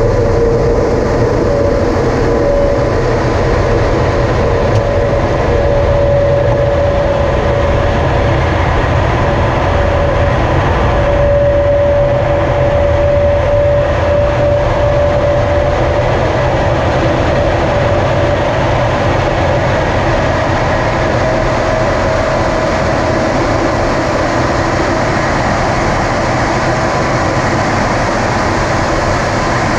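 Jet engine and airflow noise heard inside the MiG-23UB's cockpit as the aircraft climbs out after takeoff. It is loud and steady throughout, with a whine that creeps slightly higher in pitch over the first half and a fainter, higher steady tone above it.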